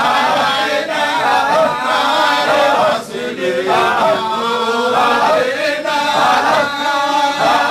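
A group of men chanting Shadhili Sufi dhikr together, a short phrase repeated over and over in a steady rhythm with brief breaks between phrases.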